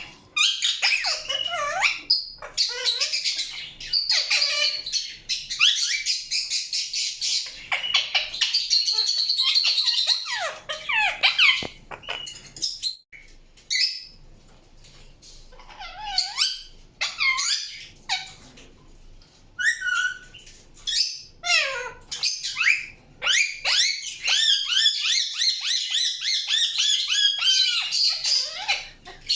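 Indian ringneck parakeet chirping and squawking in fast runs of high calls, some sliding downward in pitch. The calling thins to a few scattered calls for several seconds about midway, then turns dense again.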